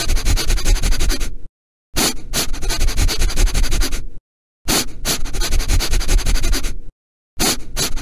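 A dog sniffing close to the microphone: rapid runs of quick, noisy sniffs, each run lasting about two seconds with a short break before the next, repeating evenly.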